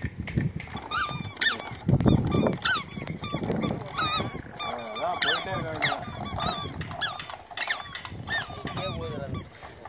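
Wooden toddler push walker squeaking over and over as it rolls, with its wooden wheels rumbling on the dirt road.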